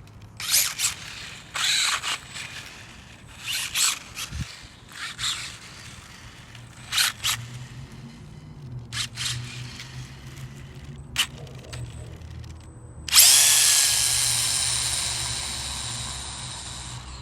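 RC drag car's motor blipped in short bursts about eight times, then opened up at full throttle about 13 seconds in, starting suddenly and fading away over about four seconds.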